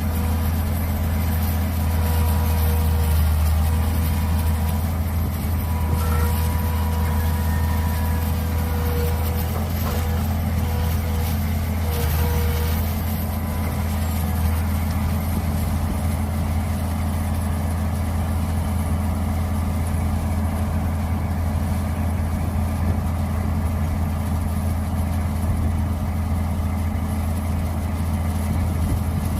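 Mini excavator engine running steadily, with a faint thin whine over it for the first dozen seconds or so that then fades out.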